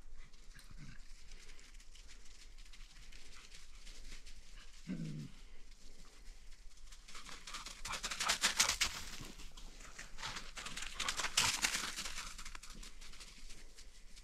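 Dogs panting close by, in two loud stretches of rapid breaths, with a short, low falling vocal sound from a dog about five seconds in.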